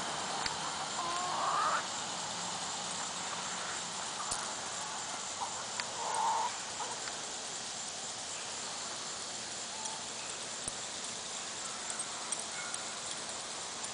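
Backyard chickens calling as they forage: a short rising squawk about a second in and a brief cluck around six seconds, with a few small clicks and scratches between.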